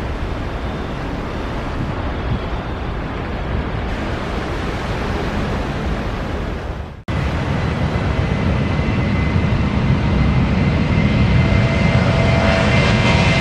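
A steady, loud rushing noise, broken by a sudden cut about halfway, after which an airliner's engines grow louder, with a high whine emerging near the end.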